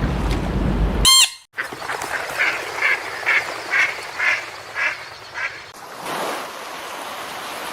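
Waterfowl calling in a rapid series of about eight honking calls, roughly two a second, getting fainter toward the end. It is preceded about a second in by a short, loud ringing burst that cuts off a low rumbling noise.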